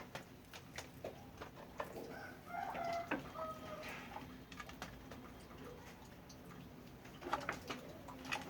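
Chickens clucking, with short calls about two to four seconds in, among scattered light clicks and knocks.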